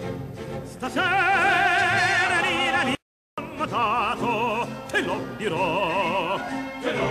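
Background music: an operatic solo voice singing long notes with a wide vibrato over a steady accompaniment. The music cuts out completely for a moment about three seconds in.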